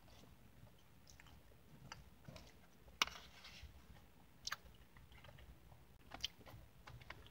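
Close-up mouth sounds of a man chewing crumbly streusel-topped Dutch apple pie, with scattered soft clicks and crunches; the sharpest click comes about three seconds in.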